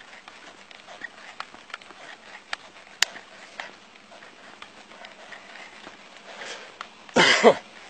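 Rustling and scattered soft clicks from a body-worn police camera rubbing and knocking against the officer's gear, with a sharper click about three seconds in. A short, loud burst with a falling pitch comes near the end.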